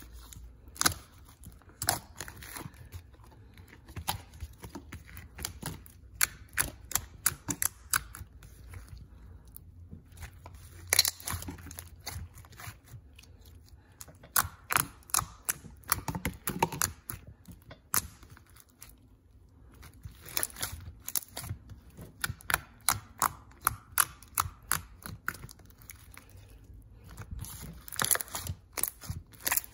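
Hands squishing, poking and stretching a thick pink slime mixed with small beads, making irregular sticky pops, clicks and crackles.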